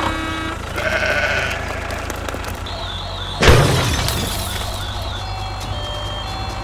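Sound-effect track: a sheep bleating, over a steady low engine rumble for the toy tractor. About three and a half seconds in comes a sudden loud whoosh, then short repeated beeps near the end.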